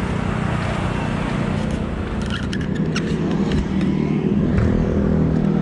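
Road traffic with a motor vehicle engine running close by, its steady hum growing a little louder near the end. A few light clicks come partway through.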